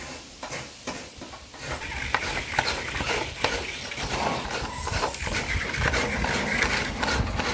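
A coconut half being scraped against the serrated metal blade of a traditional floor coconut grater. There are scattered scrapes at first, then from about two seconds in a continuous, rapid rasping, stroke after stroke.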